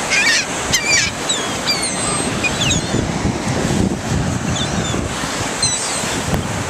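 Ocean surf and wind on the microphone, with many seagulls calling over it: a flurry of short high cries in the first two seconds and another near the end.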